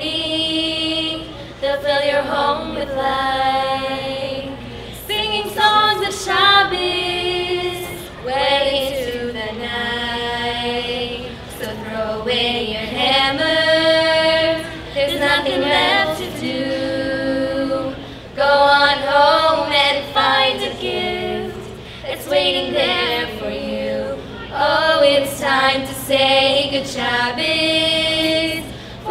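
Several female voices, women and girls, singing together a cappella with no instruments, in phrases of held notes that rise and fall with short breaths between.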